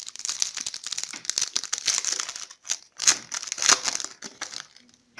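Foil trading-card packet being torn open and crinkled by hand: a dense crackling rustle, a brief gap just before three seconds in, then a second burst that dies away near the end.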